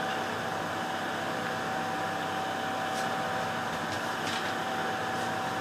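Steady background hum and hiss with a constant faint whine, like a fan or appliance running, and a few faint light clicks.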